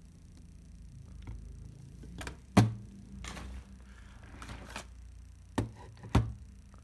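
Knocks and clicks of Plaubel Makina 67 camera body parts being handled and set down on a workbench mat, about half a dozen in all. The loudest is a sharp knock about two and a half seconds in, followed by a brief scraping.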